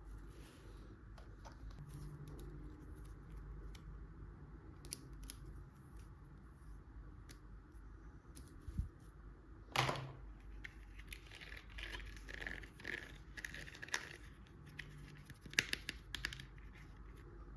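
Doll play set and its packaging being handled: scattered light clicks and rustling, with a louder tearing scrape about ten seconds in and a few sharper clicks near the end.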